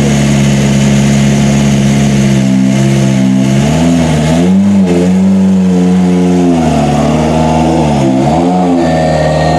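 Rally car engine running hard, its revs holding, then dipping and climbing again several times, around four seconds in and again near the end, as the car works through gear changes or a bend.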